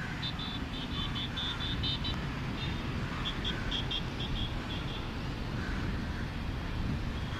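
Steady, fluttering low rumble of outdoor ambience, with two runs of rapid high-pitched chirps, about five a second, in the first five seconds.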